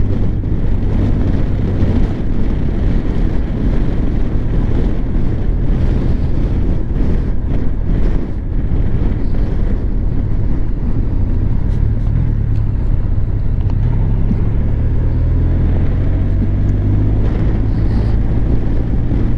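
Honda Crosstourer's V4 engine running steadily while riding, with wind noise on the microphone.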